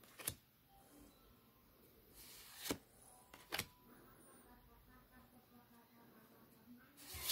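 Pokémon trading cards being slid one by one off the front of a small stack to the back, each giving a brief papery swish or snap; about four of them, spaced unevenly, one near the start and one near the end.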